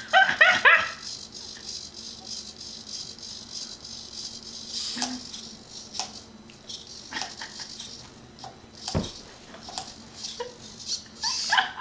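Small motors of a cardboard Arduino robot arm running and rattling as the arm moves a makeup brush, a faint steady hum with a few sharp clicks.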